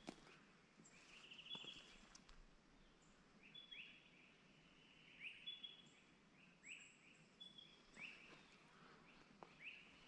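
Faint bird calls: short, quick notes that sweep in pitch, repeated about once a second over a low background hiss.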